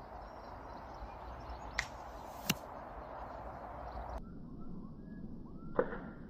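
EK Blade 175 lb crossbow being shot: three sharp snaps, the last and loudest near the end, over a steady hiss that cuts off about four seconds in.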